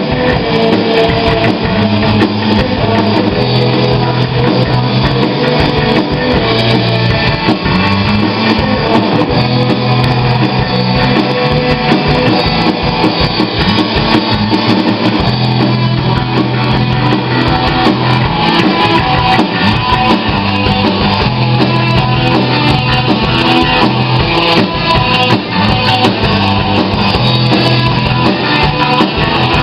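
Rock band playing: distorted electric guitar, bass guitar and a drum kit, loud and continuous.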